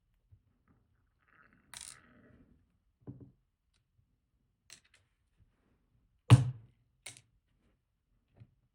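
Scattered small clicks and taps of lock pins and tools being handled while a pin-tumbler lock cylinder is taken apart, with one louder knock about six seconds in.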